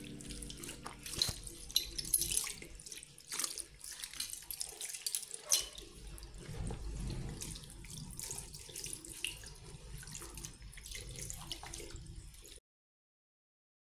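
Tap water running into a bathroom sink while a cloth scrubs the basin, with irregular splashes and small knocks. The sound cuts off abruptly near the end.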